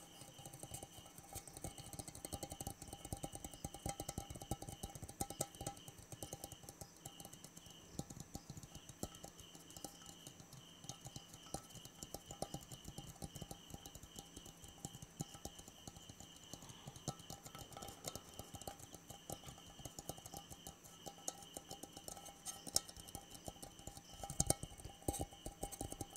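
Fast, uneven ASMR tapping with fingers on hard objects, many quick taps a second.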